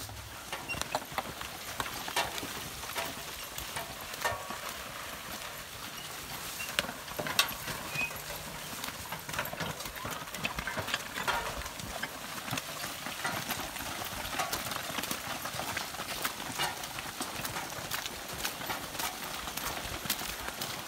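Horses' hooves clopping as a horse-drawn cart drags a scraper blade through mud and manure, with irregular knocks and clanks throughout.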